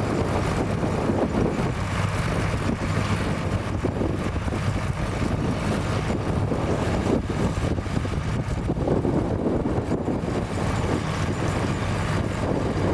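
Tractor engine running steadily, with wind buffeting the microphone.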